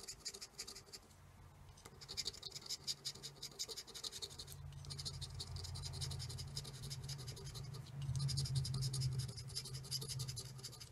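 A plastic scratcher disc scraping the latex coating off a scratch-off lottery ticket in rapid back-and-forth strokes, with a brief let-up about a second in.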